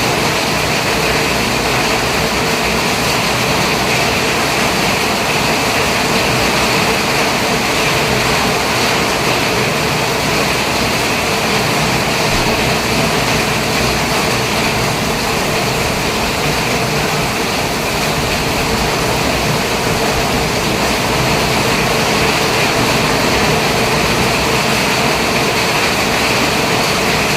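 Steady engine and road noise of a moving vehicle, an even rushing with no breaks or changes.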